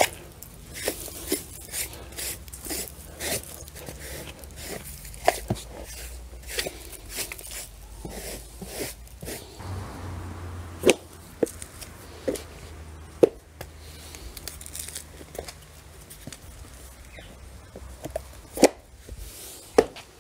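Irregular scraping, rustling and clicking as a plastic strip-drain grate is set back into its channel and pressed into place, with several sharper knocks in the second half.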